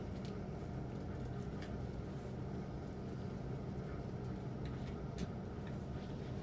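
Steady low mechanical hum with a few faint, sharp clicks and taps scattered through it.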